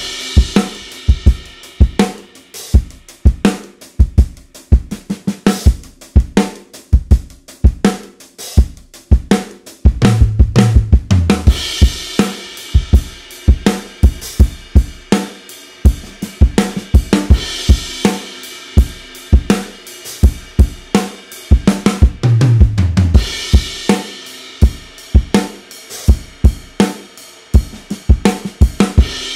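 Acoustic drum kit playing a steady groove of kick, snare and hi-hat as a mixed studio recording. Twice a low, descending fill leads into a bright wash of crash cymbals. The sound comes from overheads and room mics that switch between pencil condensers and ribbon mics.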